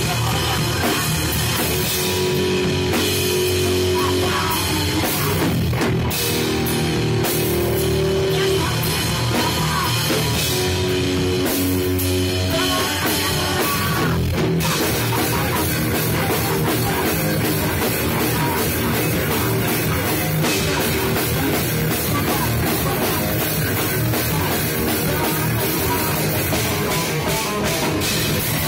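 Punk band playing live through amplifiers: distorted electric guitar, bass guitar and drum kit, loud throughout. The first dozen seconds have held notes with short breaks; from about fourteen seconds in the playing becomes a denser, steadier wall of sound.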